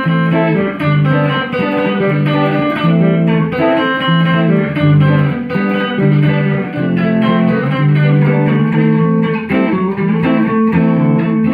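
Two electric guitars, a Les Paul-style solidbody and a sunburst chambered electric, playing a tune together with picks. A picked melody runs over low, sustained notes that repeat in a steady pattern.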